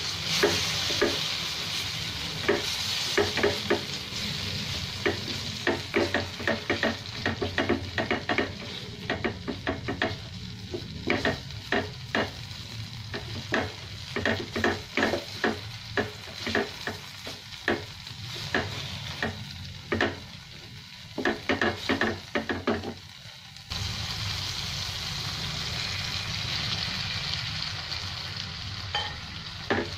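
A wooden spatula scraping and knocking against a non-stick frying pan as chili paste and sliced onions are stirred in hot oil, over a light sizzle. Near the end the stirring stops abruptly, leaving a steady, louder sizzle.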